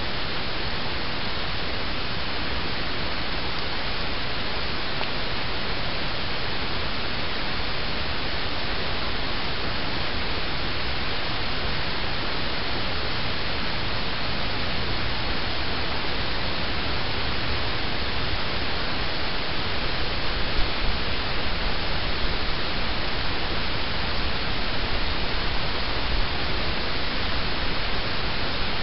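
A steady rushing hiss with a fluttering low rumble underneath, and a few small bumps in level near the end. No calls or other distinct sounds stand out.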